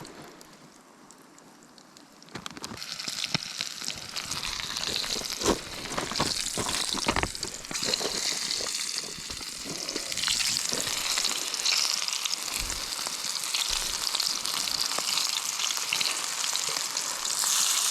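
Chiselmouth fish frying in a pan, sizzling steadily. The sizzle comes up about two seconds in, and a few short clicks of a utensil against the pan come around the middle.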